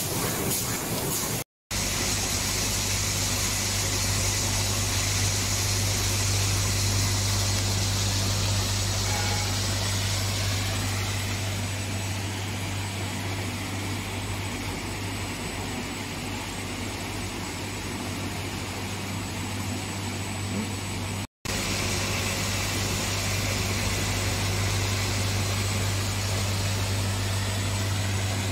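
Factory packaging machinery running: a steady drone with a strong low hum under an even hiss. It cuts out for an instant twice.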